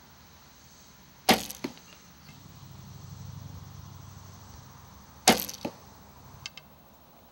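Two shots from a traditional bow, about four seconds apart. Each is a sharp string slap on release, followed about a third of a second later by the smaller knock of the arrow striking a foam 3D animal target. A faint low hum runs between the two shots.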